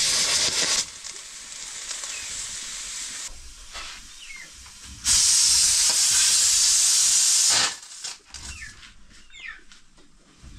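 Pressure cooker of rice venting steam: a loud hiss cuts off about a second in, a softer hiss carries on, and a second loud hiss of about two and a half seconds starts near the middle and stops abruptly.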